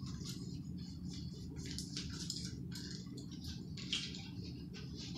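Faint, brief swishes and scratches as a yo-yo is handled and its string wound back by hand, over a steady low hum.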